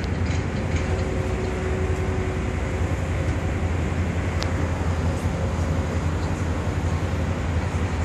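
Steady low drone of a passenger ferry's engines, with an even rushing hiss over it.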